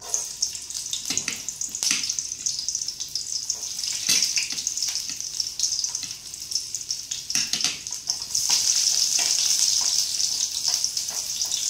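Hot oil sizzling in a stainless steel pot as food fries and is stirred, with scattered sharp crackles of spattering oil. The sizzle starts suddenly and grows louder about eight seconds in.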